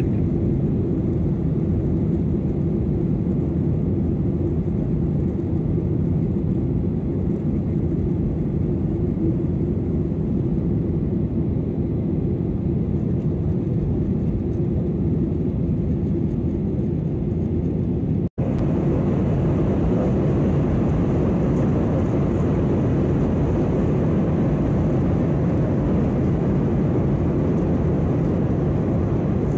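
Steady airliner cabin noise in flight: jet engine and airflow rumble heard from inside the cabin, with a faint steady hum underneath. It breaks off for an instant about 18 seconds in, then carries on a little brighter.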